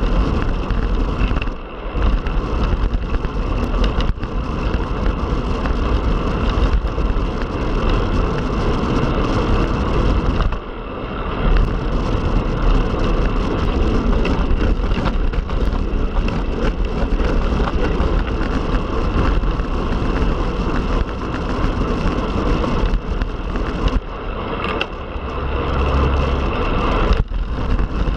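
Steady wind and road rush from a road bike ridden at speed, with strong low rumble. The noise dips briefly three times, about 2, 11 and 27 seconds in.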